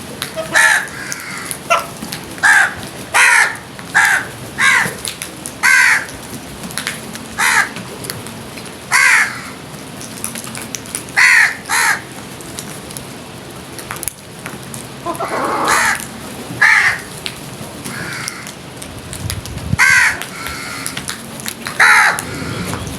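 Crows cawing over and over: short harsh caws every second or so, some in quick pairs, with a few longer pauses.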